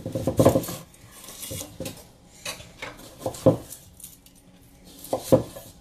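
Kitchen knife cutting a raw sweet potato into wedges on a cutting board: a series of irregular knocks as the blade goes through and strikes the board, the loudest two near the middle and end.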